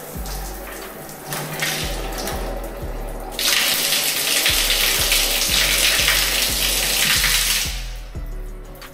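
Water tap running hard during a water-pressure check: a softer flow at first, opened up about three and a half seconds in to a strong rush, then cut back near the end. A steady-beat background music track plays underneath.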